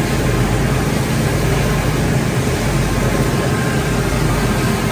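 Wood pellet production line running: the ring-die pellet mill, vibrating pellet screen and conveyor make a loud, steady machine hum with a constant hiss, as pellets pour off the screen onto the cleated belt.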